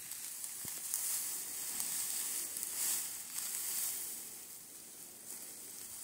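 Dry hay rustling and crackling, a high hiss that swells and fades.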